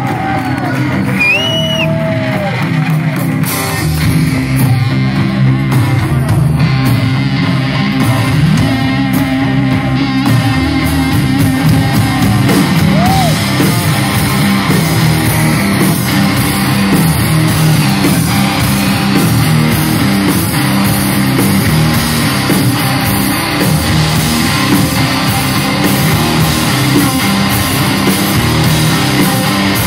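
Live rock band playing: electric guitars and drum kit, the full band filling in about four seconds in.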